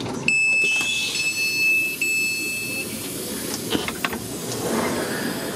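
Class 450 Desiro train's passenger door opening after the open button is pressed: a steady high warning beep sounds for about two and a half seconds, briefly broken about two seconds in, over a hiss from the door gear. A few clicks follow near the middle.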